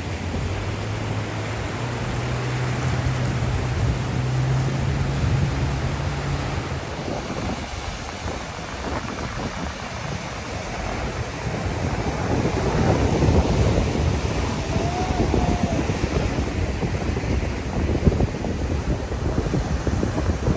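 Ocean surf breaking and washing over shore rocks, with wind buffeting the microphone; the surf grows louder about halfway through.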